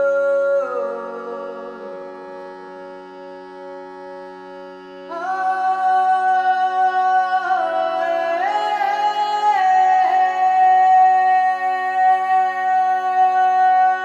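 Slow meditative music: a steady drone of held tones under a chanting, humming voice. The voice slides down and fades about a second in, leaving the drone quieter, then comes back in around five seconds in and steps between a few long held notes.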